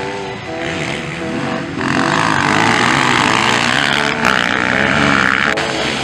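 Motocross dirt bikes' engines running at high revs as riders pass close by, loudest from about two seconds in until shortly before the end.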